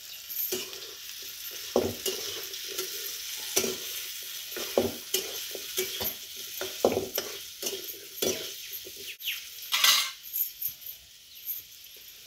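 Cubed potatoes frying in oil in a steel pan, sizzling steadily, while a metal spoon stirs and scrapes against the pan in short, irregular strokes.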